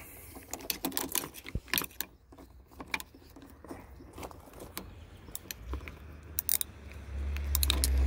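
Metal wrench clicking and clinking on the seatbelt anchor bolt of an old pickup as the bolt is worked loose, in short irregular clicks. A low rumble sets in near the end.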